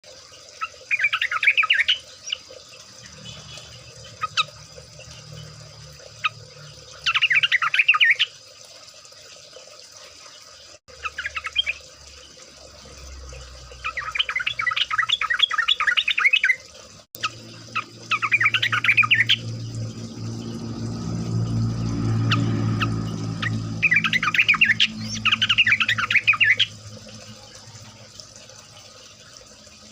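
Yellow-vented bulbuls (trucukan) chattering in repeated bursts of rapid bubbly notes, each a second or two long, as a group of birds calling together. A low rumble rises under the calls in the middle and fades away.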